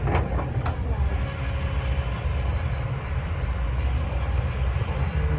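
Kobelco SK200 hydraulic excavator's diesel engine running steadily with a deep rumble as the machine swings a loaded bucket of dirt. There are a couple of brief sharp sounds in the first second.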